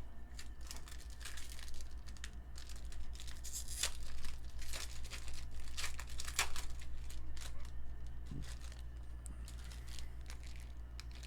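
Foil wrapper of a trading-card pack being torn open and crinkled, in irregular crackles that are busiest over the first seven seconds and thin out after.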